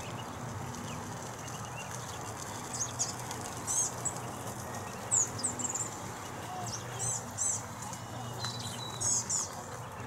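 Small songbirds chirping: clusters of short, very high-pitched chirps starting about three seconds in, over a steady low hum.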